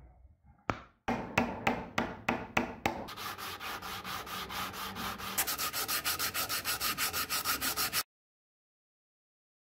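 A small wooden part sanded back and forth by hand on 300-grit sandpaper. It starts with slower separate strokes, then quick even strokes about five a second, and stops abruptly about eight seconds in.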